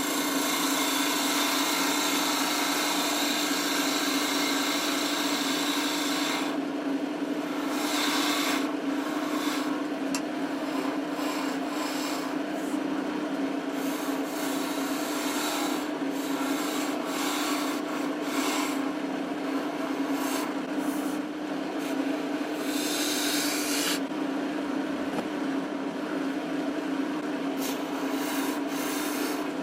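Wood lathe running with a steady motor hum while a spinning wooden handle is worked, a tool or abrasive rasping against the wood in stretches that swell and fade.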